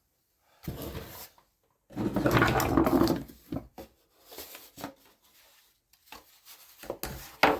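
Handling noise from a model airplane's wooden airframe being worked on at a bench: a short scrape, then a louder rubbing and rustling about two seconds in, followed by scattered light knocks and clicks.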